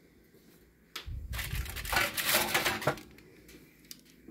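Parchment-lined metal baking sheet being pulled out of the oven: a knock about a second in, then about two seconds of scraping and rustling.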